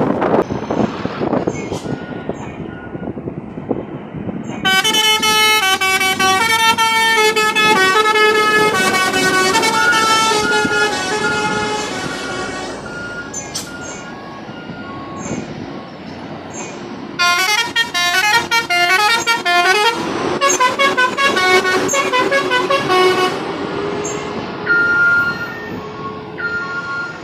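Basuri (telolet-style) multi-tone musical horns on convoy vehicles tooting quick melodic runs of notes. Two long runs of tunes are separated by short single toots and road traffic noise.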